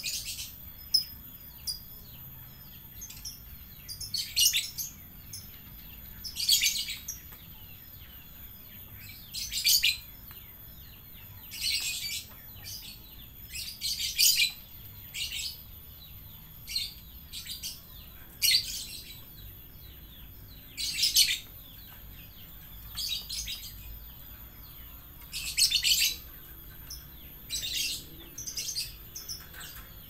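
Domestic canary singing in short, high-pitched phrases of about half a second, repeated every two seconds or so.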